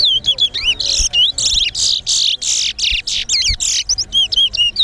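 Towa-towa seed finch singing a fast, unbroken song: clear whistled notes that slide down and up, with a run of harsher, buzzier notes in the middle. It is a competition song of the kind counted one by one in a towa-towa singing race.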